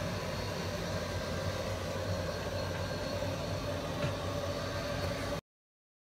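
Steady machine hum with a constant hiss, a low drone and a held mid-pitched tone, unchanging until it cuts off abruptly to silence about five seconds in.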